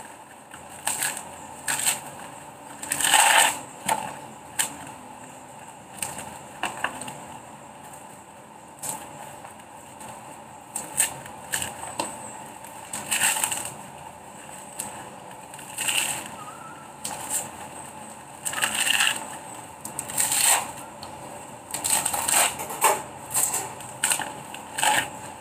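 Fibrous husk of a mature coconut being pried and torn off by hand, in short irregular bursts of ripping.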